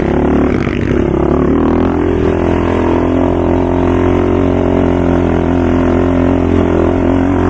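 ATV engine running, settling into a steady, even note about a second and a half in.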